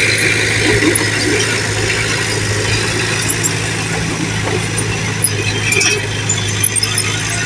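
An engine idling steadily with an even low hum, with a few light clinks about halfway through.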